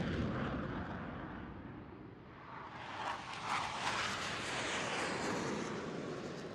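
Jet aircraft engine noise, a steady rushing sound that fades over the first two seconds, swells again about halfway through and dies away near the end.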